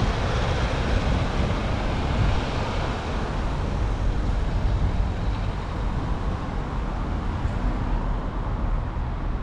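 Road traffic noise: a steady rumble with tyre hiss from cars passing along the road.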